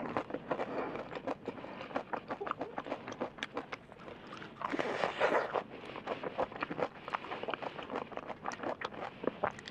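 Close-miked chewing of crispy fried chicken: a run of sharp crunches and wet mouth clicks, with a longer, louder stretch of crunching about five seconds in.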